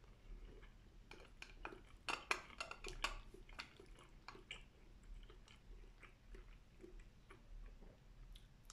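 Close-miked chewing of food: a run of short wet smacks and clicks, loudest and quickest about two to three seconds in, then softer and more spaced out.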